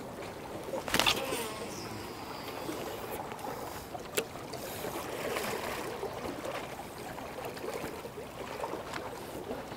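Water lapping at the shoreline, an even washing noise, with a brief burst of noise about a second in and a single sharp click just after four seconds.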